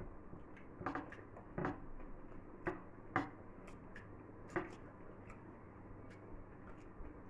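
Two people eating gobi manchurian: irregular clicks and short smacks of chewing, with toothpicks picking saucy fried cauliflower pieces off steel plates. Five or so louder smacks stand out in the first five seconds.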